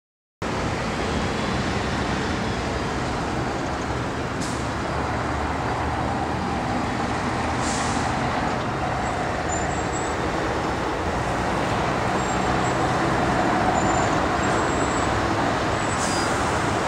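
Heavy vehicle engines running steadily, with a broad rushing noise over them and three short hisses.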